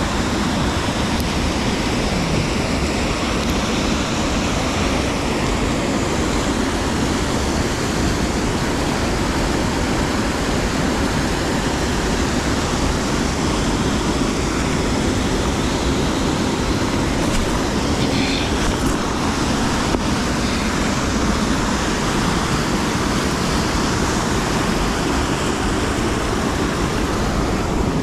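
Mountain creek water rushing, a steady even rush of flowing water.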